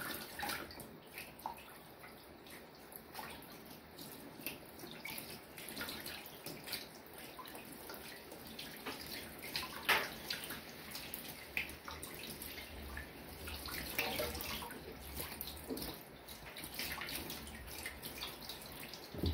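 Tap water running into a sink while a fish is rinsed and handled under it, with frequent splashes and small knocks; the sharpest knock comes about halfway through.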